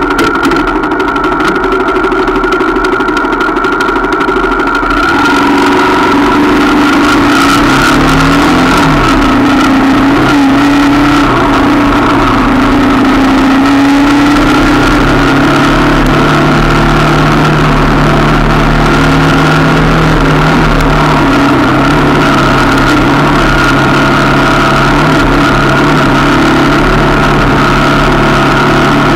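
125cc adventure motorcycle engine running under way on a dirt track, over a steady rushing noise. About five seconds in it gets louder and its note shifts as the bike speeds up, then it holds a steady pace.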